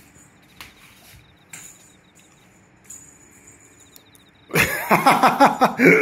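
A few faint, light taps as a cat plays with a feather wand toy on a wooden floor, under a faint high insect-like trill. About four and a half seconds in, a man's voice starts loudly.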